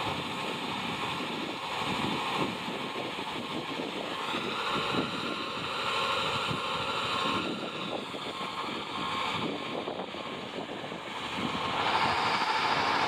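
Hi-rail truck reversing along the track with its gondola cars, a steady rumbling noise of truck and rolling wheels with wind buffeting the microphone. A faint, repeated beep of a backup alarm sounds over it.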